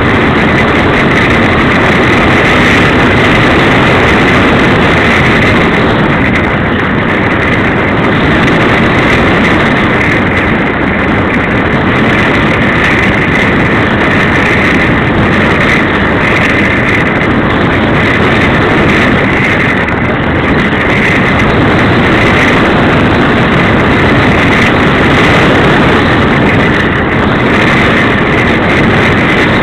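Loud, steady wind rush from airflow over a camera towed behind a flying RC slope glider, with a thin, steady high whistle running through it.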